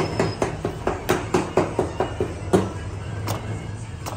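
A quick run of sharp thuds, about four to five a second, for the first two and a half seconds, then two single knocks, over a steady low hum.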